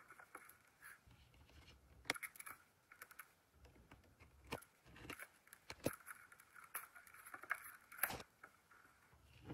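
A craft knife scraping along the seal of a clear plastic toy canister as hands turn it, with soft scraping and several sharp plastic clicks and taps.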